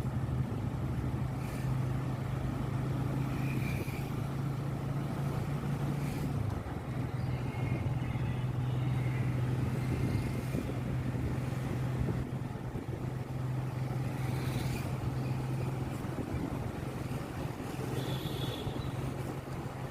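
A road vehicle's engine running steadily, a low even hum over road and traffic noise.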